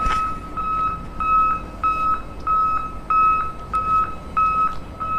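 Electronic reversing beeper sounding a steady, evenly spaced single-pitch beep, about one and a half beeps a second.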